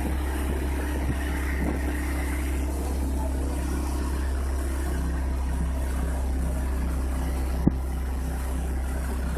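Engine of a motorised outrigger boat (bangka) running steadily while under way, a constant low drone. A single short sharp click sounds a little before the end.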